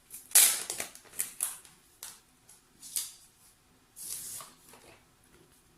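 Packaging rustling and crackling as a lenticular photo card is worked out of it by hand. The crackles come in short bunches, loudest in the first second, and thin out toward the end.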